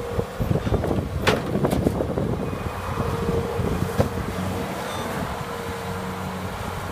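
Volvo MC85C skid steer's diesel engine running steadily, with a couple of sharp knocks.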